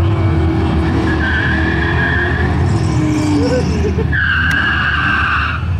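Drag-racing car doing a burnout: engine running loud under a steady squeal of spinning rear tyres, in two spells, the second starting about four seconds in, louder and lasting over a second.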